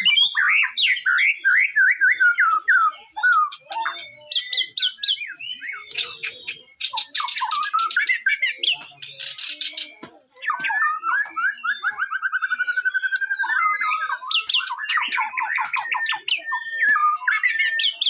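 White-rumped shama (murai batu) singing loudly: a run of varied whistled phrases made of rapid repeated notes and trills, with harsh rasping bursts about midway and a fast, even trill a little later.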